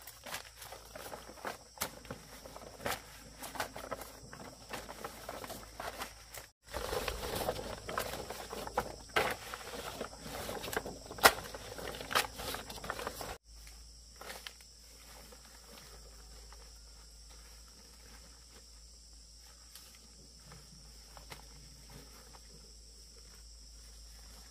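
Footsteps and rustling, crackling leaves in forest undergrowth, with sharp snaps. The sound grows louder and denser about six seconds in, then cuts abruptly to a quieter stretch of faint ticks over a steady high insect drone.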